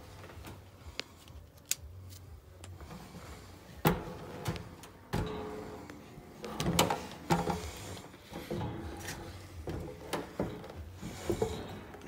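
Handling and movement noise of a person climbing and moving about in a roof space: scattered knocks, clicks and rustling, with the sharpest knocks about four and five seconds in.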